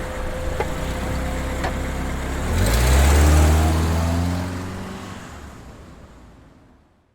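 Car engine idling, then revved once about two and a half seconds in, its pitch rising and falling back, before the sound fades out to silence.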